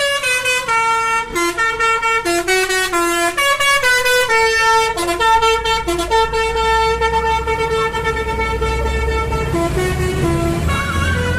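Bus telolet horn playing a quick tune of short stepped notes, then holding one long note for about three seconds from around six seconds in, with short notes again near the end. A low rumble grows beneath the horn in the second half.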